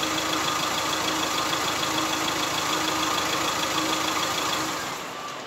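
Diesel engine idling steadily on a test run after its turbo and intercooler have been repaired; near the end the sound dies away as the engine stops.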